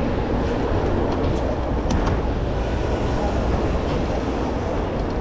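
Steady rumble of wind on the camera microphone and tyres rolling over asphalt as a mountain bike is ridden along a street, with a few faint rattling clicks about two seconds in.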